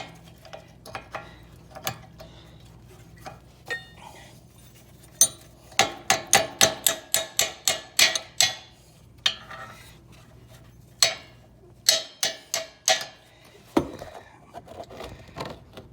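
Wrench tapping a new rear brake pad into the caliper bracket to seat it past its spring tab. Sharp metallic taps with a ringing note come in two quick runs, about a dozen over three seconds and then about half a dozen, with a few scattered taps around them.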